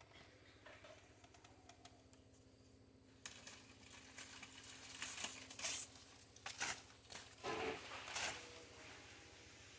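Faint rustling and crackling of leaves and bark, in several short bursts in the second half, as wild mushrooms are pulled by hand from a mango tree's trunk.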